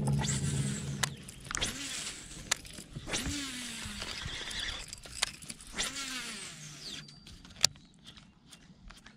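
Baitcasting reel cranked in quick spurts to wind in line, its gears whirring up and down in pitch about three times, with sharp clicks and knocks from handling the rod and lure.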